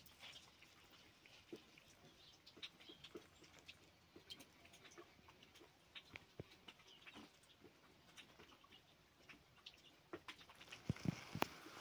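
Quiet ambience of scattered faint clicks and water drops with brief chirps of small birds; a few louder clicks and knocks come near the end.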